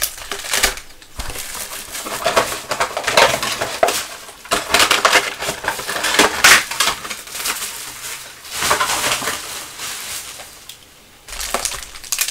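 Foil wrappers of Panini Prizm basketball card packs crinkling and rustling in irregular bursts as the packs are handled and stacked, with a brief lull near the end.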